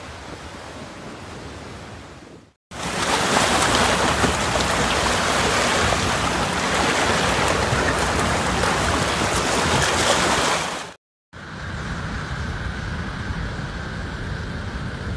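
Storm surf: waves breaking and surging over rocks and shore, with wind on the microphone. The noise cuts out briefly twice, and the middle stretch is the loudest.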